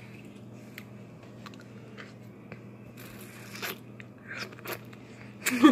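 Ice being bitten and crunched in the mouth close to the microphone: scattered crisp crunches, sparse at first, more frequent from about three seconds in and loudest near the end.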